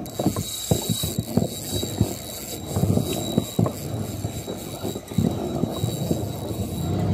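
Spinning reel being cranked while playing a hooked redfish from a kayak, with irregular knocks and bumps over a low rumble.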